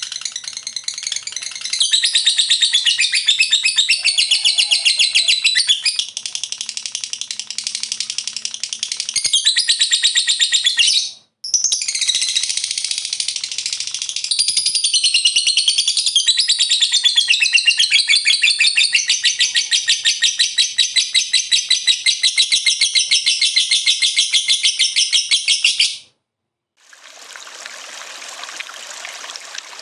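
Lovebird 'ngekek': a long, fast, high-pitched chattering trill, broken by a brief pause about eleven seconds in. It cuts off suddenly, and after a second of silence a steady sound of running water begins near the end.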